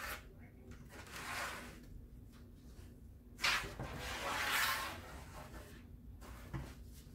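Handling noise on a tabletop: a ruler and a large white board being slid and moved, a short rubbing sweep about a second in, then a louder scrape of the board that starts with a sharp knock and lasts over a second, and a small knock near the end.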